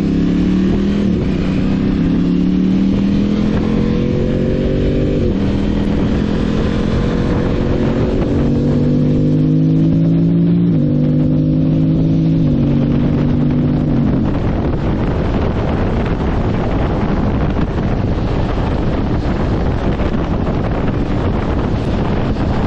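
Aprilia Tuareg 660's parallel-twin engine pulling under load, its note climbing and then dropping at each of a few upshifts, geared with a 16-tooth front and 41-tooth rear sprocket. About halfway through, the engine fades under steady wind noise on the microphone as the bike holds speed.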